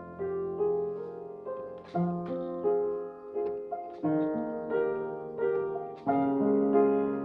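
Piano-like keyboard playing a slow piece, a melody of notes struck about twice a second over sustained chords, each note ringing on and fading.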